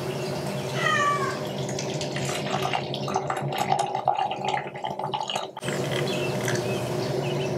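Hot water poured in a thin stream from a gooseneck kettle onto loose tea leaves in a glass teapot, which fills as the pour goes on. A brief high sliding tone is heard about a second in.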